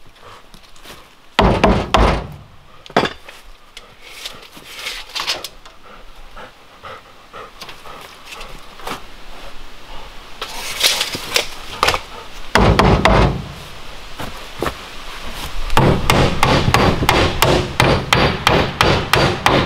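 Wood knocking and clattering: pieces of wood struck and handled against the plank woodshed, with a few strikes a couple of seconds in, a clattering stretch around the middle and a run of quick, hammer-like knocks near the end.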